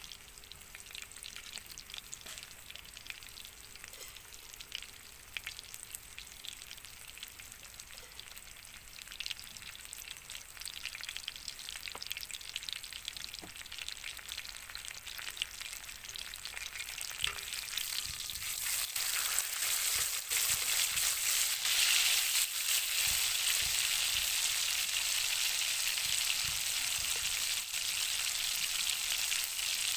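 Wagyu steak sizzling and crackling as it fries, the sizzle growing louder about two-thirds of the way through.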